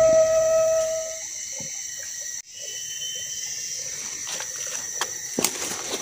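Flute music fades out in the first second, leaving tropical forest ambience: a steady high-pitched insect drone. A few faint short clicks come near the end.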